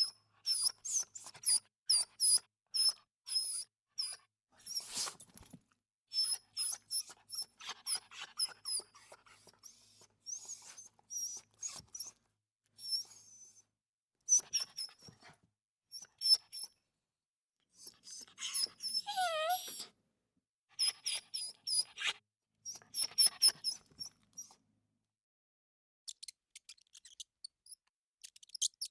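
An animal's high-pitched squeaks and whimpers, in quick runs of short calls with pauses between, and one longer falling whine about two-thirds of the way through.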